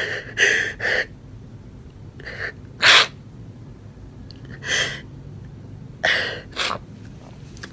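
A man crying: a string of short, sharp sniffs and gasping breaths, about seven in all, the loudest about three seconds in.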